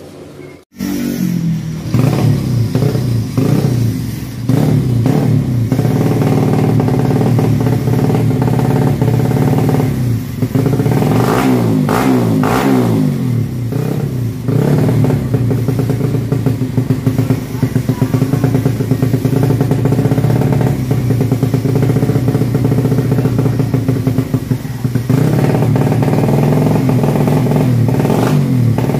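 Bored-up Yamaha Jupiter four-stroke engine, about 120 cc with a racing camshaft, running on its first start after the cam was fitted, loud and steady with the throttle blipped, the revs rising and falling several times around the middle and in quick stabs near the end.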